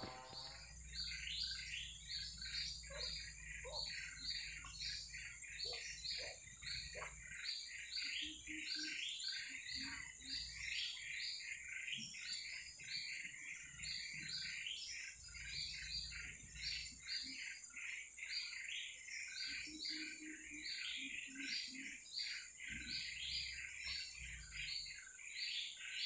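Birds calling in short repeated chirps, several a second, over a steady high insect drone. One brief, louder, high-pitched chirp comes about two and a half seconds in.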